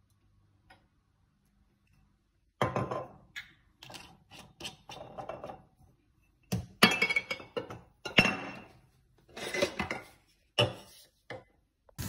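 Kitchen clatter: a series of clinks and knocks of utensils and containers against a cooking pot and the counter. It starts after a couple of quiet seconds.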